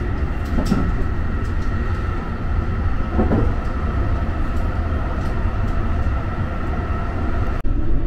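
Interior running noise of a JR West Type 223 electric train in motion: a steady low rumble with a faint steady whine and a few light clicks.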